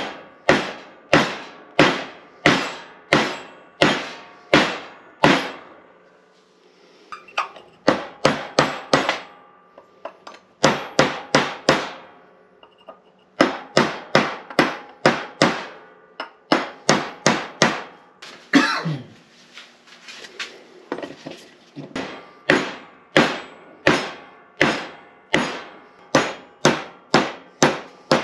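Steady hammer blows, about two a second, broken by a few short pauses, on a part of an NP205 transfer case being worked on the bench.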